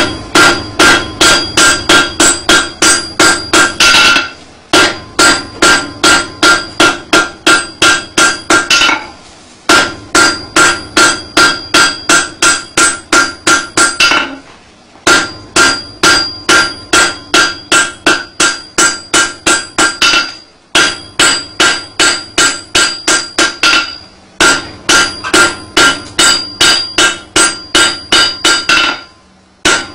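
Hand hammer striking glowing-hot metal on an anvil in quick, even blows, about three a second, each blow ringing. The blows come in runs of about five seconds with brief pauses between.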